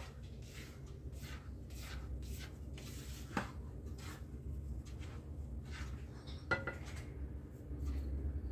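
Silicone spatula stirring and scraping dry flour and sesame seeds around a glazed clay bowl, in repeated strokes about two a second, with two sharper knocks of the spatula against the bowl about three and six and a half seconds in.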